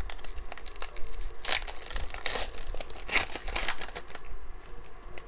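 Foil trading-card pack wrapper being torn open and crinkled by hand, in irregular bursts of crinkling that are loudest between about one and a half and three and a half seconds in, then die down near the end.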